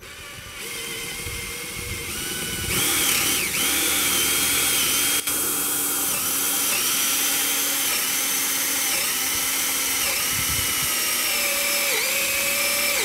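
Ryobi cordless drill boring a hole through a 4x6 wooden post. The motor whine builds over the first few seconds, then runs steadily under load, its pitch sagging briefly about once a second as the bit bites into the wood.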